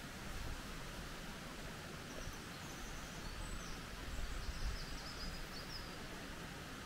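Steady outdoor background hiss with a few low bumps, and faint high bird chirps about two seconds in and again from about three and a half to five and a half seconds.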